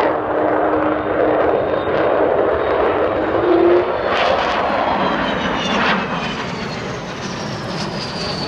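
Avro Vulcan XH558's four Bristol Siddeley Olympus turbojets in a low flypast: a loud, steady jet rush, with high whining tones that glide down in pitch from about halfway as the bomber passes over.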